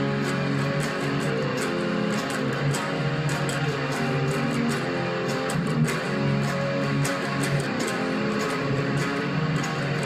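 Guitar music with strummed chords and a steady rhythm.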